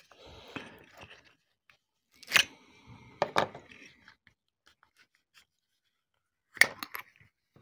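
Handling of a stiff new leather Zippo lighter case: faint leather rubbing with a few sharp clicks and snaps, one early, a close pair a little later and a cluster near the end; the leather has not yet broken in.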